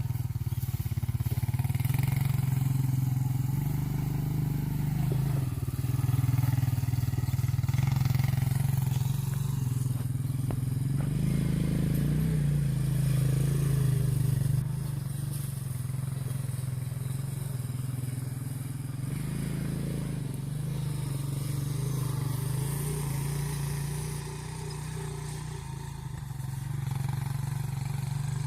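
A small engine running steadily, its pitch rising and easing off a couple of times as it works, somewhat louder in the first half.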